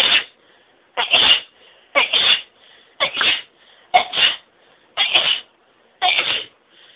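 A woman sneezing in a rapid fit: seven sharp sneezes in a row, about one a second, with short breaths between them.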